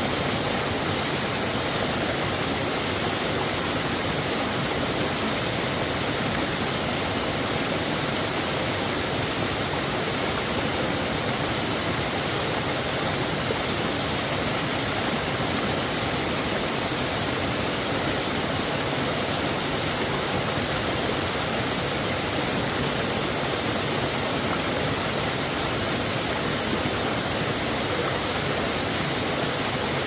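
A waterfall and the small cascade at its foot pouring over rocks: a steady, even rush of falling water that does not change in level.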